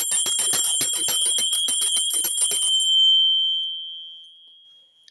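Small high-pitched hand bell shaken rapidly, its clapper striking about eight times a second. About two and a half seconds in the shaking stops and the bell's single ringing note, pitched between G7 and G sharp 7, dies away.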